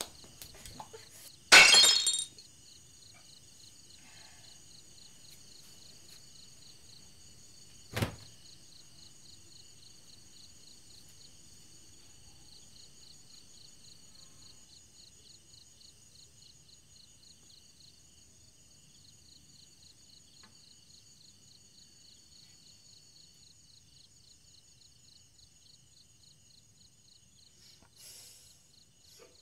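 A drinking glass crashes and shatters on a hard floor about two seconds in, followed by a single sharp knock around eight seconds. Crickets chirp steadily throughout.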